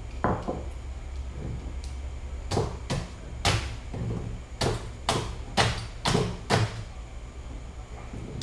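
Ice pick stabbing into a block of ice, about eight sharp strikes in two quick runs beginning a few seconds in, over a steady low hum.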